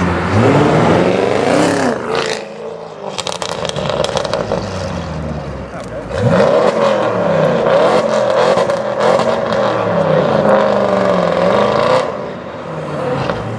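Audi RS6 C7's twin-turbo V8 through a decatted Milltek exhaust, revving up and down repeatedly. As the revs drop about two seconds in, a run of sharp crackles and pops follows, then a longer stretch of hard revving that falls away near the end.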